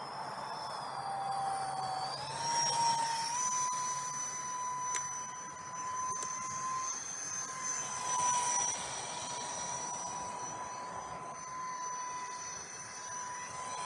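Electric ducted fan of a 3S-powered RC park-flyer jet whining in flight, a steady high whine over a rushing hiss. About a second in the pitch sags, then climbs between two and three seconds in as the fan speeds up, and holds steady after that. It swells louder twice.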